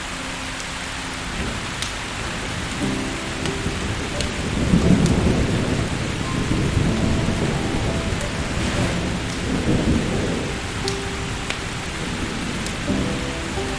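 Steady rain falling, with rolling thunder rumbling in, loudest about five seconds in and swelling again near ten seconds.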